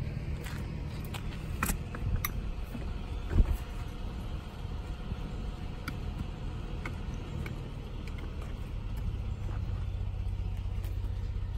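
Scattered knocks and scrapes of a wooden stick packing potting soil into a pot, and of a black plastic pot being handled, with one louder thump a few seconds in. A steady low rumble runs underneath.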